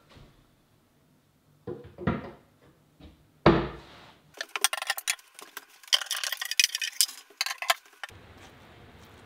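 A few knocks and a heavy thump, then a few seconds of quick clattering and clinking of hard objects, stopping about eight seconds in.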